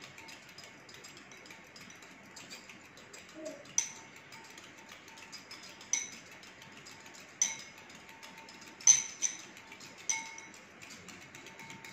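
A small metal whisk beating a mixture in a glass bowl: a constant rapid light ticking, with several louder clinks of the wires against the bowl's side that leave the glass briefly ringing.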